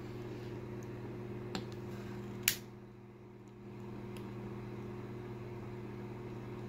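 Long-nosed click-trigger utility lighter lighting a tealight: a soft click, then one sharp loud click about two and a half seconds in as it sparks, over a steady low hum.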